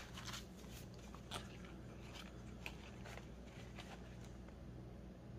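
Faint rustling of paper banknotes and a plastic binder pocket being handled, with a few soft scattered ticks over a low steady hum.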